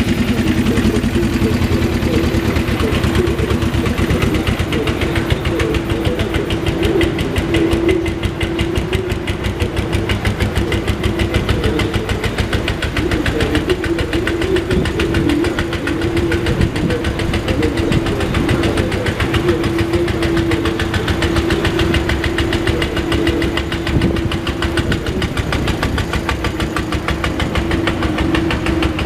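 A 2001 Suzuki GS500F's air-cooled parallel-twin engine running at a steady idle through an aftermarket slip-on muffler.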